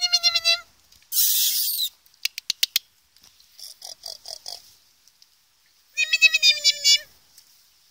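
Puppy whining: a short high whine at the start and a longer, wavering whine about six seconds in, with a few brief yips in the middle. Between them come a second-long burst of hiss and a quick run of five clicks.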